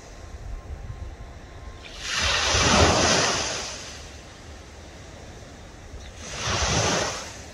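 Waves washing in against the shore, two swells of surf that build and fade, the first about two seconds in and the second near the end, over a low rumble of wind on the microphone.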